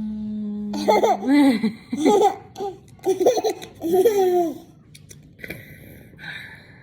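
Young child laughing in several short bursts, dying away about four and a half seconds in.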